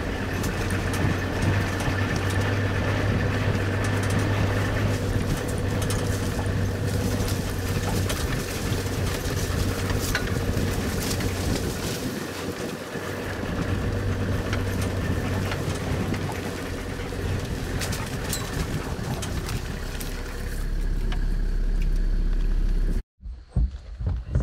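Vehicle engine and road noise while driving, a steady hum heard from the back where the dogs ride; it cuts off suddenly near the end.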